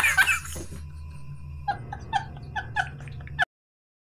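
A high-pitched laugh trailing off, then a quick run of short squeaky yelps, about five a second, over a low hum, cut off abruptly.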